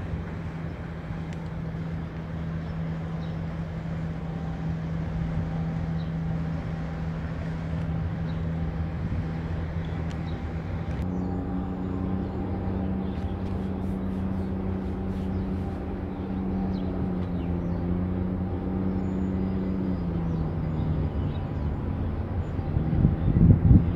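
Steady low engine drone made of several pitched tones. The pitch steps up about eleven seconds in and drops slightly near twenty seconds. A loud rumble of wind on the microphone comes briefly near the end.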